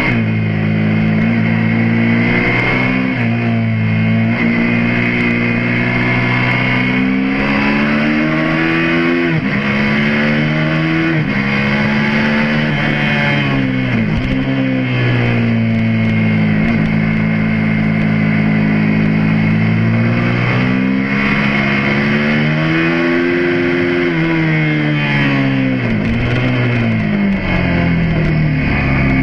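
Suzuki SV650S's 645 cc V-twin engine under hard use on track, its pitch climbing as it accelerates and dropping sharply several times as the rider shuts off and changes down for corners.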